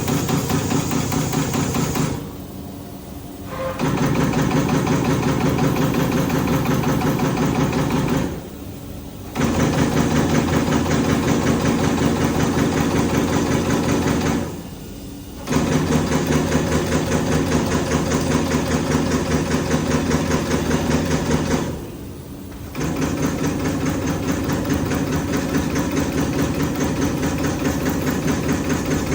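CNC automatic pearl setting machine running a pattern, a fast run of mechanical strokes as it sets beads. It stops briefly four times, for about a second each, roughly every six to seven seconds.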